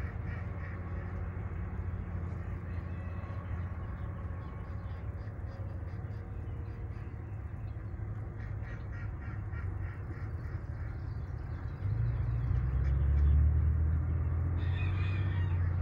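Farm birds calling, ducks among them, over a steady low rumble that becomes clearly louder about twelve seconds in.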